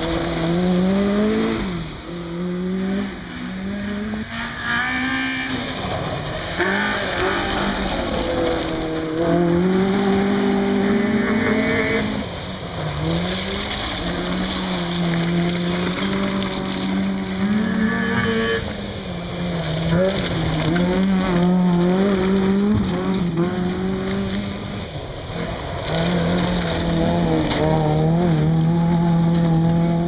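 Small 1400cc-class rally cars driven hard on a gravel forest stage, one clip after another. The engines rev high, the pitch climbing and dropping sharply at each gear change, and the tyres scrabble on loose gravel.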